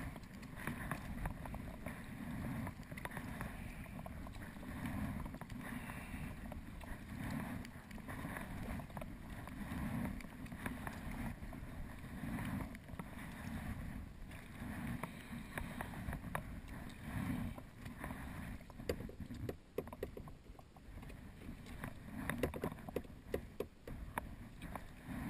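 Sea kayak being paddled: water splashing and lapping at the hull in an uneven rhythm of strokes, with a few light knocks in the last several seconds.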